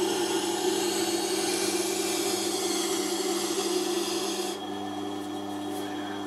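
Sharpening machine's motor humming steadily while a cleaver's edge rubs on a felt wheel coated with 1-micron diamond spray, a steady rubbing hiss: the deburring stage after grinding. The hiss stops about four and a half seconds in, leaving the motor hum.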